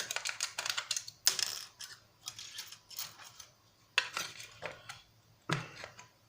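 Irregular clicks and small metallic clatter from battery-terminal contacts being pried and pulled out of a plastic RC transmitter's battery compartment. The clicks come thick in the first second or so, then in short scattered groups.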